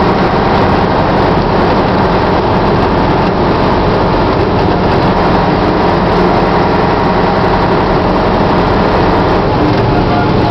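Scania 142's 14-litre V8 diesel engine running steadily, an even, continuous drone with no change in pitch or level.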